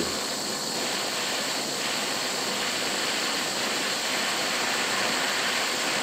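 Handheld gas torch burning with a steady hissing roar, its flame playing on the tip of a gas water heater thermocouple to heat it.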